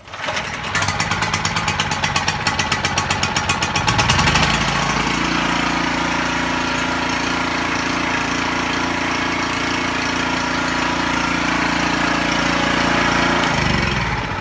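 Champion 4000 portable generator being electric-started: the starter cranks the engine with a fast, even pulsing for about four seconds until it catches. It then runs loud and steady until it shuts off near the end.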